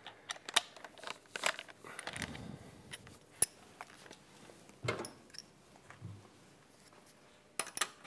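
Scattered light clicks and knocks from an electric drill being handled and set down after drilling, with one sharp click about three and a half seconds in. There is a small metallic clatter near the end.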